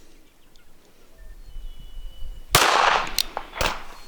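A single pistol shot from a Ruger LCP in .380 ACP: one sharp, loud crack with a short echoing tail about two and a half seconds in, followed by two shorter, fainter cracks within the next second.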